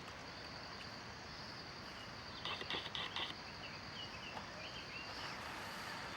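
Forest ambience: a steady high-pitched insect drone over a soft even hiss, with a bird calling in a quick run of short notes about two and a half seconds in, followed by a few short chirps.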